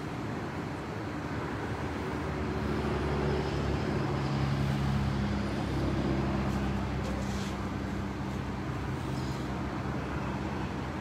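Road traffic noise with a passing vehicle's engine hum. The hum builds about two seconds in, is loudest around the middle, and then eases off.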